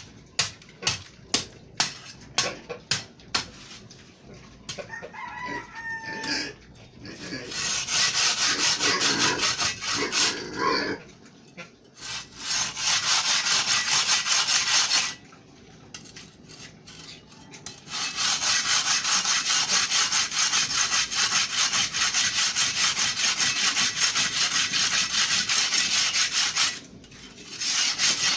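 Concrete block being cut by hand into bricks: a run of sharp knocks, about three a second, then long spells of fast, even scraping strokes with a few short pauses. A rooster crows briefly in the first seconds of scraping.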